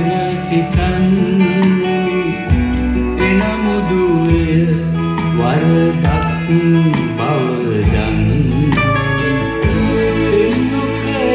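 A song with guitar and a singing voice playing from a vinyl record through a Sansui AU-D707G Extra amplifier and Energy C6 loudspeakers, heard in the room, with bass notes changing every second or two.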